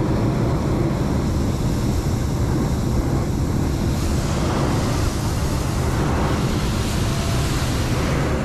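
Hot air balloon's propane burner firing overhead at takeoff: a loud, steady rush of burning gas, deepest at the low end.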